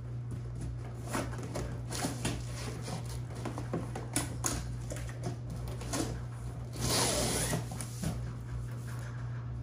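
Plastic drawer boxes of a rolling hauler bag handled and slid into their fabric-lined slots: a string of light plastic knocks and taps, with a longer scraping slide about seven seconds in as a drawer is pushed home.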